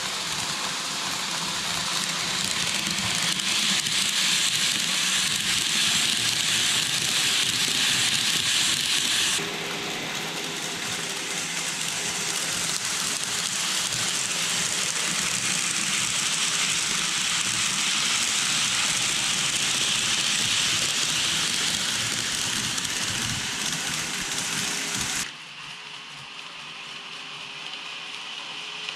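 N-gauge model train, a KATO KiHa 181 series diesel railcar set, running along the layout track with a steady rolling rattle of wheels on rail. The sound shifts abruptly about a third of the way in and drops noticeably quieter near the end.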